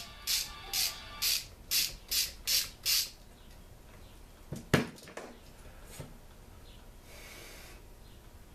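Ratchet wrench worked back and forth in quick strokes, about two or three a second, each stroke a short burst of clicking, stopping about three seconds in. Then a single sharp knock near the middle and a lighter one about a second later.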